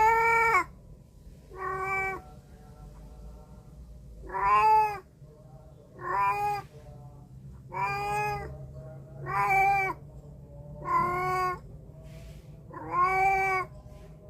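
A cat meowing repeatedly: eight meows, about one every one and a half to two seconds, each rising and then falling in pitch.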